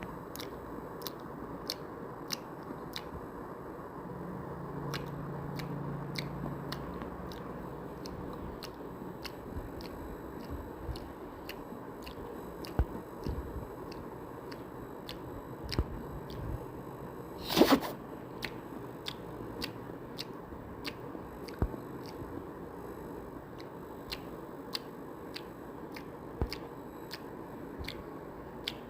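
Close-up chewing and biting of food, with many small wet mouth clicks and one much louder crunching bite a little past halfway.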